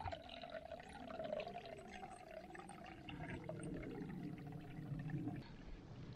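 Water running from a split-log wooden pipe and pouring into a carved wooden sink, splashing into the water already pooled there. It breaks off about five and a half seconds in.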